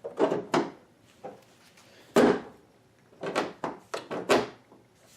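A car hood being lowered and pressed shut onto newly fitted hood pins: a series of knocks and thuds, the loudest about two seconds in.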